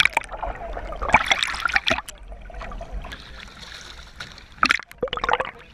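Water splashing and gurgling at the waterline, heard from a camera dipping in and out of the sea, with bursts of splashing about a second in and again near the end.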